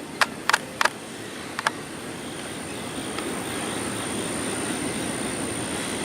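Intermodal freight train's container cars rolling past, a steady rumble with a thin high whine held throughout. A few sharp clicks come in the first two seconds.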